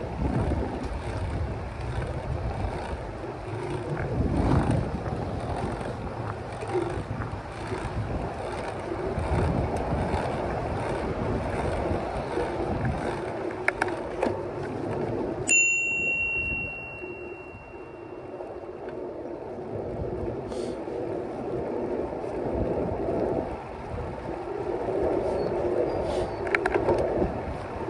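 Wind rush and rumble on a moving microphone. About halfway through, a bicycle bell dings once and rings on for about a second.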